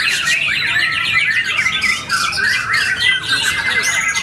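White-rumped shama (murai batu) singing a fast, unbroken stream of chirps, trills and whistled glides, with other caged shamas singing around it.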